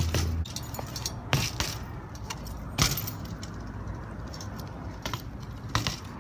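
Fixed-gear bike rattling as it is ridden and hopped along a concrete curb, its chain and parts jangling, with about four sharp knocks as the wheels land on or strike the curb, the loudest about halfway through.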